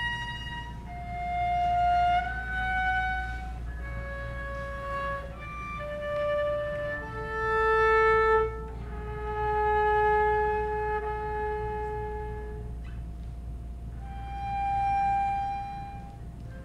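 Solo cello played with the bow: a slow melody of single long notes in a high register, each held one to three seconds and swelling in loudness.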